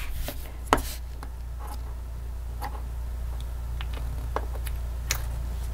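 A few sparse light clicks and taps from small plastic toy kitchen pieces being handled, over a steady low background hum.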